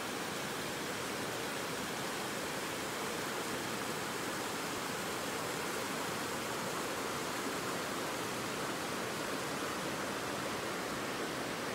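Creek water rushing steadily over rocks, a constant even rush with no breaks.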